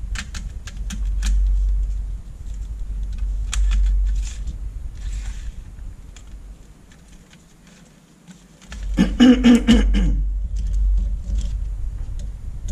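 Handling noises from fitting an LED backlight strip into the metal edge of an LCD panel and laying out its wires: scattered light clicks and taps, then a louder scrape lasting about a second, about nine seconds in.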